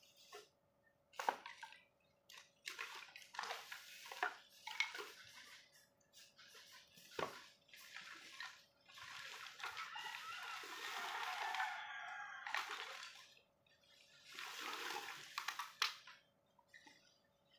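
Woven plastic sacks rustling and being dragged while wooden sticks clatter and knock, irregularly, with a few sharp knocks and a longer stretch of rustling about ten seconds in. A faint steady hum sits underneath.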